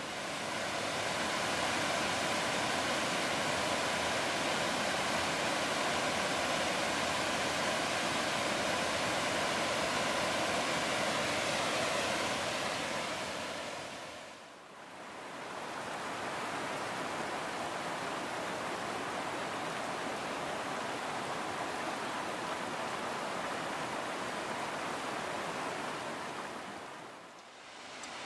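Steady rushing of a mountain stream cascading over boulders, a dense white-water roar. It fades out and back in about halfway through and runs on a little quieter in the second half.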